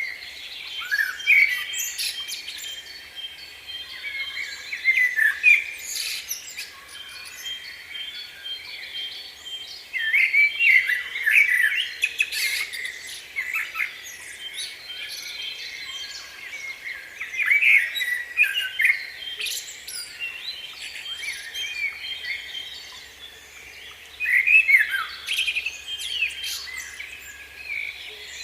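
Small songbirds chirping and singing, with many overlapping quick high notes coming in bouts every few seconds.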